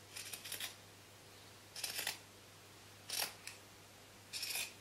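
Scissors snipping through several layers of cloth at once, in four short bursts about a second and a half apart.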